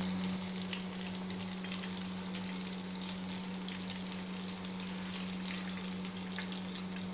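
Ghevar batter frying in a pan of hot oil: a steady sizzle with many fine crackles, over a steady low hum.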